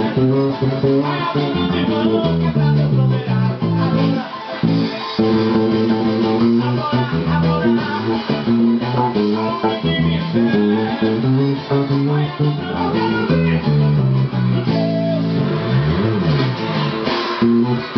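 Electric bass guitar playing a continuous groove through an amplifier, along with fuller band music that includes guitar and a voice.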